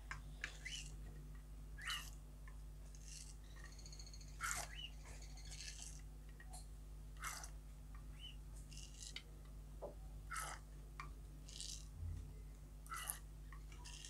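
Faint, scattered bird chirps and squeaks, with soft clicks of a plastic syringe working hand-feeding formula in a small steel bowl.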